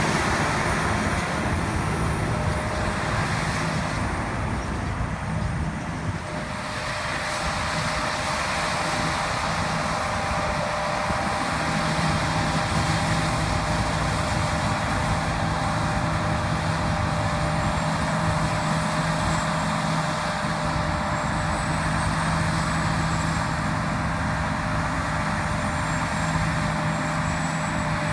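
Heavy harvest machinery running steadily under load while harvesting barley: a constant engine drone with a few steady whining tones, dipping briefly a few seconds in.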